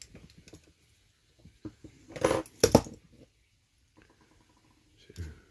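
Metal hand tools clinking and clattering as a punch is set down and pliers are taken up, with the loudest clatter, in two quick parts, about two seconds in. Light clicks of metal on the diecast ladder mechanism come before and after it.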